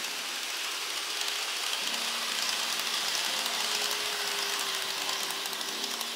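Model Tokyo Metro 10000 series train running along the track: a steady mechanical rattle and whir of the motor and wheels on the rails, swelling a little as the cars pass close about two to four seconds in.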